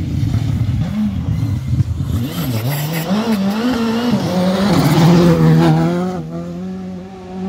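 Škoda Fabia Rally2 rally car's turbocharged four-cylinder engine revving hard through a gravel corner, its pitch rising and falling with throttle lifts and gearshifts. It is loudest about five seconds in as the car passes close, then drops away suddenly.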